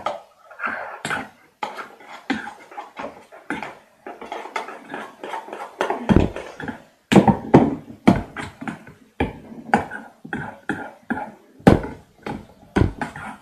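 Freshly made white glue slime being kneaded and squeezed in the hands, giving a quick irregular run of sticky clicks, snaps and small pops, with a few heavier slaps near the middle.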